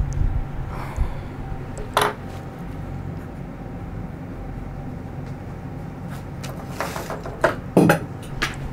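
Scattered clicks and knocks of small objects being handled: a sharp one about two seconds in and a cluster near the end, over a low steady hum.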